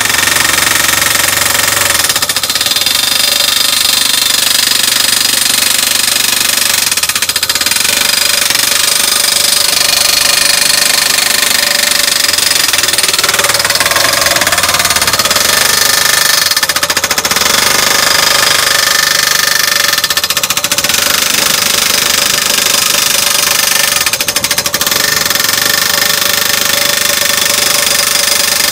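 Skid steer running hard while its hydraulic Texas Post Driver TPD-500 hammers continuously, driving a post into limestone ground.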